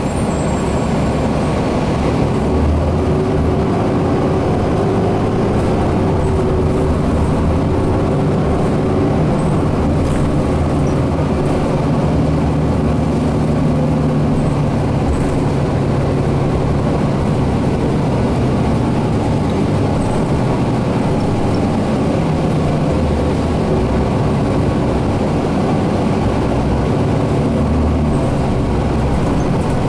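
Steady engine drone and road noise inside a moving 2010 Orion VII NG city bus.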